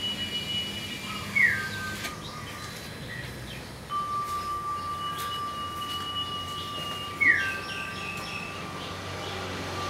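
Birds calling: two short, sharp calls that slide down in pitch, about six seconds apart, over long, steady high-pitched tones.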